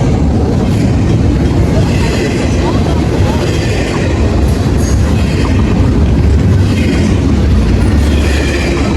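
Train rolling past close by: a loud, steady rumble of wheels on rail, with a clatter that comes back about every second and a half as the cars cross the rail joints.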